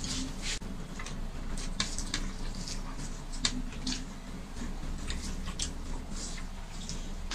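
Eating sounds of people eating rice with their hands: irregular soft clicks and smacks from chewing and from fingers mixing rice on plates.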